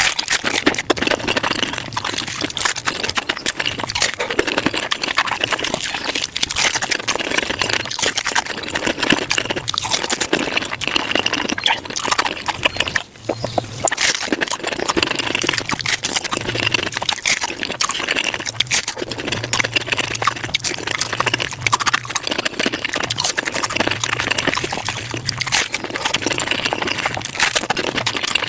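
Mukbang eating sounds sped up about five times: rapid crunching, chewing and wet smacking of tacos packed into a dense stream of clicks. It drops out briefly about halfway through.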